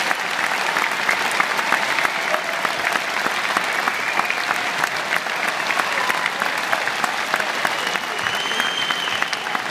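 Large concert-hall audience applauding steadily after a song, a dense even patter of many hands clapping, with a short high whistle from the crowd about eight seconds in.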